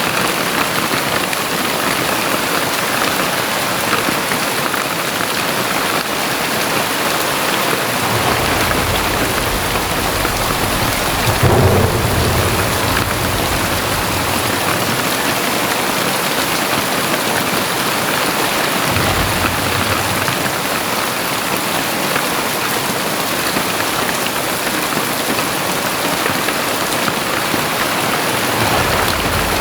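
Very heavy rain pouring steadily, with low rumbles of thunder: the strongest about eleven to twelve seconds in, another around twenty seconds, and one more near the end.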